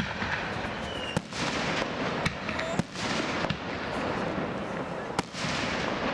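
Aerial firework shells bursting overhead: about half a dozen sharp bangs roughly a second apart, over a steady background hiss.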